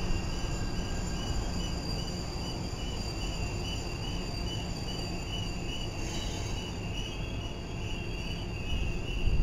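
Norfolk Southern freight train rolling past, locomotives giving way to loaded coal hopper cars: a steady rumble of wheels on rail with a thin high whine pulsing about three times a second, growing louder near the end.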